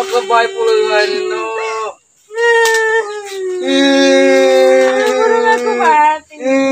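A person wailing in long, drawn-out high-pitched cries, with a short break about two seconds in.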